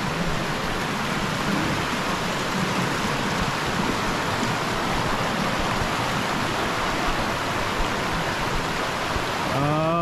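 Shallow mountain stream rushing over stones and gravel, a steady hiss of running water.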